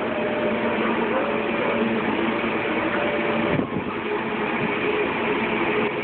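Steady mechanical drone, like a large engine or machine running, with faint steady tones in it. It is interrupted by a short knock about three and a half seconds in.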